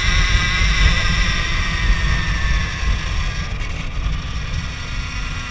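2018 Alta Redshift MXR electric dirt bike's motor and drivetrain whining while riding, over a heavy low rumble of wind on the chest-mounted microphone. The whine dips briefly about three and a half seconds in, and the sound eases a little after that.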